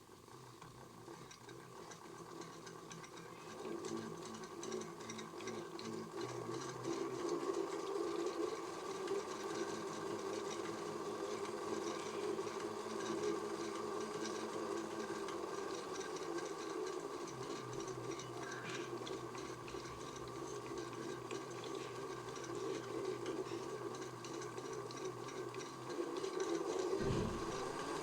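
Small electric motor of a modified Miele toy washing machine running with a steady whine, growing louder over the first several seconds and then holding level.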